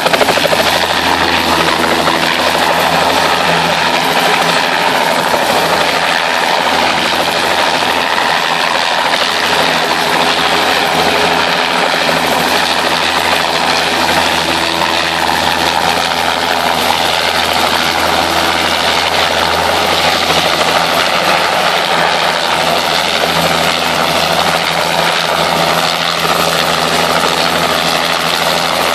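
Light helicopter with a two-bladed main rotor hovering low, its rotor and engine noise steady and unbroken.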